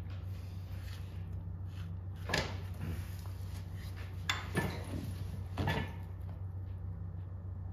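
Four sharp metallic knocks and clunks as the front leaf spring and axle parts of an Austin 7 chassis are handled and fitted, over a steady low hum.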